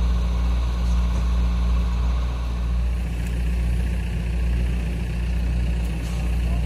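Diesel engine of a large mobile boat hoist (travel lift) running steadily at idle, a deep, even hum.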